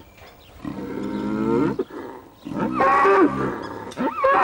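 Cattle mooing: about three drawn-out calls that bend up and down in pitch, the later two louder and higher.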